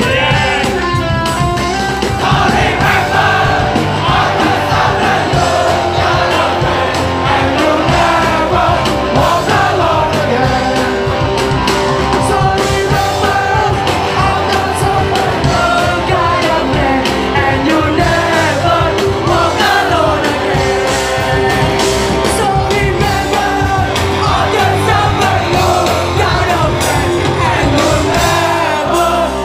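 Hardcore/metalcore band playing live and loud, with singing and yelling over the band and a crowd shouting along.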